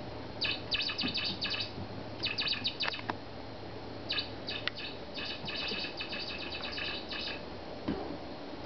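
Squeaky toy mouse chirping in quick runs of high squeaks, four bursts with short gaps, as a kitten plays with it.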